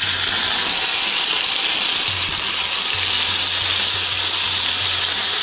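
Longhorn beetle larvae (zendettes) frying in a pan of very hot oil: a loud, steady sizzle.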